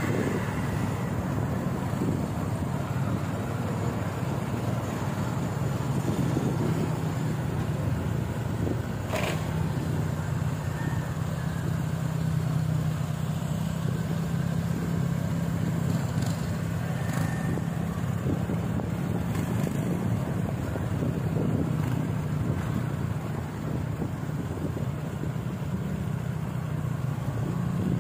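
A motor vehicle running steadily: a constant low engine hum over road and wind noise, with one brief knock about nine seconds in.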